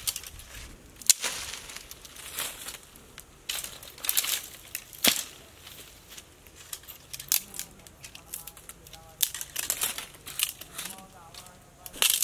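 Dry branches and twigs snapping and crackling as they are broken and dragged by hand through brush, with rustling of dry leaves and grass. It comes as an irregular string of sharp cracks, the loudest about a second in and another near the end.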